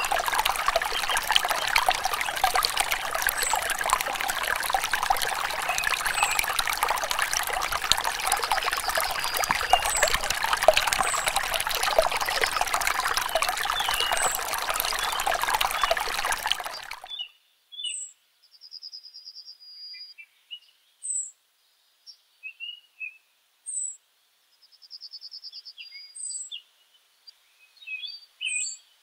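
A thin stream of water pouring from a small pipe into a shallow miniature pond, with a steady splashing trickle that cuts off suddenly about 17 seconds in. Birds chirp and trill throughout, and after the water stops they are all that is heard.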